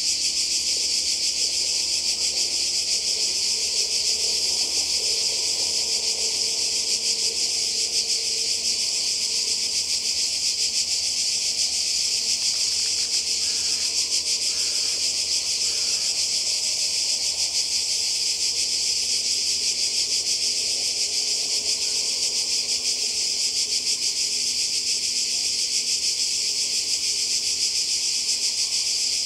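Chorus of cicadas: a steady, high-pitched buzz without a break.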